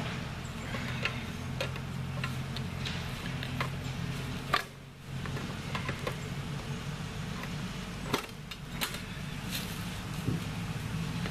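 A lawn mower engine hums steadily in the background, with scattered light clicks and knocks of handling over it. There is one sharper knock about four and a half seconds in.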